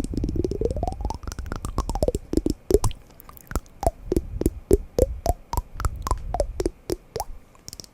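Rapid knocking on wooden blocks, many taps a second, each with a short pitched ring. At first the pitch sweeps up and then back down across the run of taps; after that come separate knocks at varying pitches.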